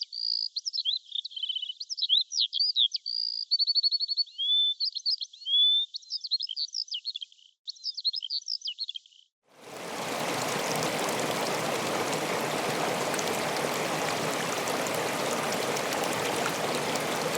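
A songbird singing quick, varied phrases of whistles, slides and trills. About nine seconds in the song stops and a steady rush of running water takes over.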